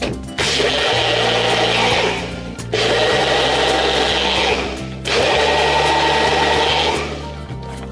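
Small single-serve blender's motor running in three pulses of about two seconds each, with short breaks between, blending water and a solid into a milky liquid. It stops near the end.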